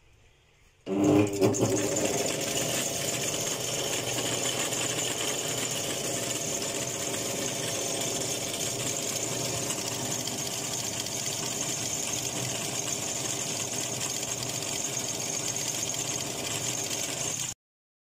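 Coil winding machine running steadily, winding 36-gauge enamelled copper wire onto a ceiling fan stator's running coil. It starts about a second in and stops abruptly shortly before the end.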